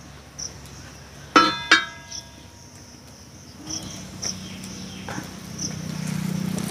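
Two clanks of a metal spatula against a large iron griddle in quick succession, each ringing briefly, as a bread omelette is flipped and folded.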